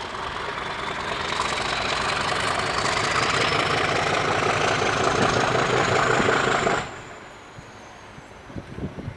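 Class 50 diesel locomotive's English Electric 16-cylinder engine working hard, its thrash building steadily with a high whine rising in pitch over it. The sound drops off abruptly about seven seconds in.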